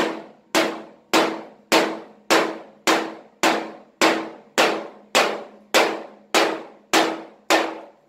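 Steady percussive drum beat: identical single hits a little under two a second, each ringing out before the next, with a steady low tone beneath, cutting off abruptly at the end.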